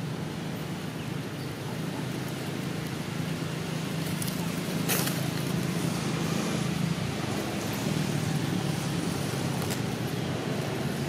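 Steady outdoor background noise with a low hum, like a distant engine. A sharp click comes about five seconds in.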